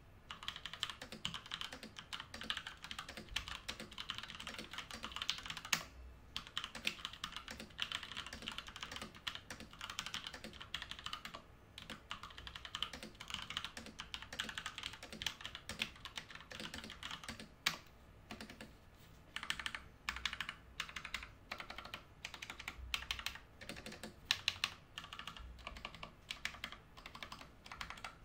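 Lofree Retro DOT mechanical keyboard with round typewriter-style keycaps being typed on in fast runs of key clicks, a light, solid sound that is not too noisy. The typing stops briefly a few times and breaks into shorter bursts in the last third.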